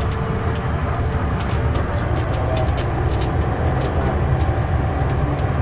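Mercedes-Benz O560 Intouro coach under way, heard from the passenger cabin: a steady low engine drone with road noise, with frequent light clicks and rattles over it.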